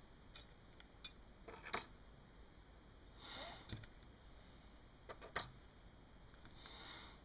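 Quiet room with a few faint, sharp little clicks and two soft sniffs.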